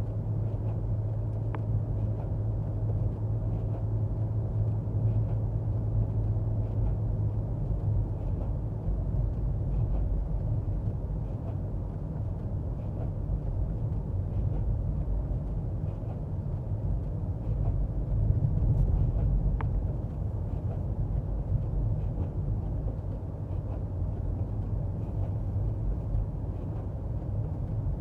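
Car engine and road noise heard from inside the cabin while driving downhill in a low gear after a downshift. The engine holds a steady hum for about the first nine seconds, then gives way to a rougher rumble that swells briefly past the middle.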